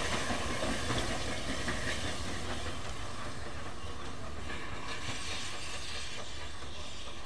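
Small steam tank locomotive running away along the track, its exhaust chuffing over hissing steam. The chuffs fade after about three seconds, leaving a steadier hiss and rumble.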